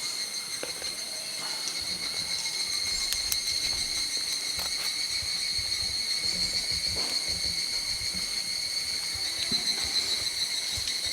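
Insects singing steadily in a continuous high, even drone, with a few faint clicks and knocks underneath.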